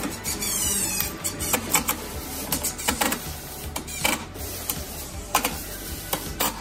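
Cordless DeWalt impact driver driving screws into UHMW plastic, running in short spurts with a rapid rattling hammer and sharp clicks.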